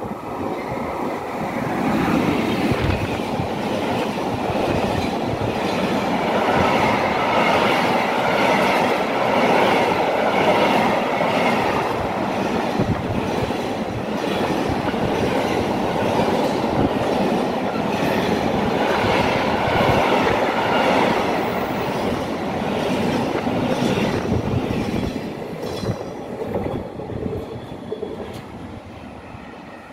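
Container freight train hauled by an electric locomotive passing close by: a steady rumble of the wagons with clickety-clack of the wheels over the rail joints. It builds over the first couple of seconds and fades away near the end as the last wagons pass.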